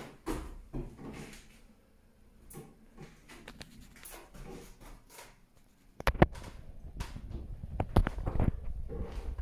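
Footsteps, knocks and phone-handling noise in empty rooms with bare floorboards: faint scattered clicks at first, then from about six seconds in a louder low rumble with several sharp knocks.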